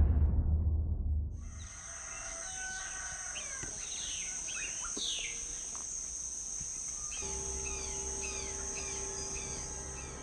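Morning ambience of many small birds chirping in short falling calls over a steady high hiss. A low boom fades out about a second and a half in.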